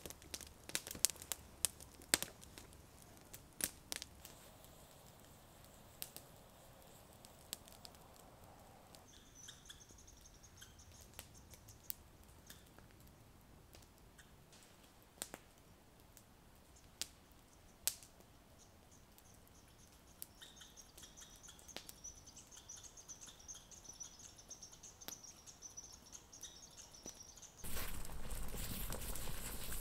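Campfire crackling with scattered sharp pops, under a faint high bird song in stretches. About 28 s in, a steady loud hiss and bubbling of water at a rolling boil in a pot on the grill over the fire comes in suddenly.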